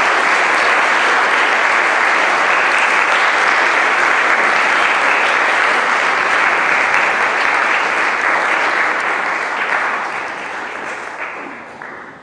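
Audience applauding steadily, the clapping thinning and dying away over the last few seconds.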